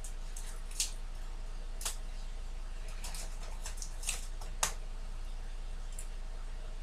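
Paper towel crinkling and rustling as hands fold and press it around a block of tofu, with about five short crackles over a steady low hum.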